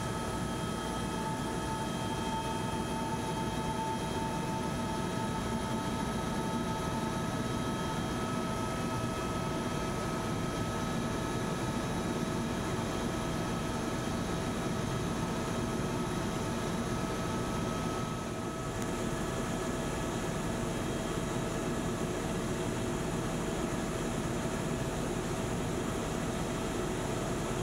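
Helicopter in flight heard from inside its cabin: a steady engine-and-rotor drone with several constant whining tones on top. It dips slightly once, about eighteen seconds in.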